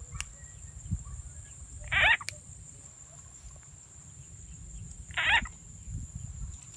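Two short frog calls, the second about three seconds after the first.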